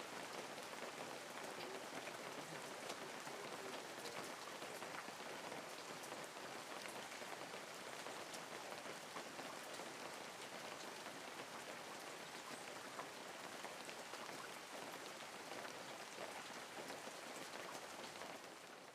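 Steady rain, with many small drops striking a windowpane as fine ticks over a constant hiss.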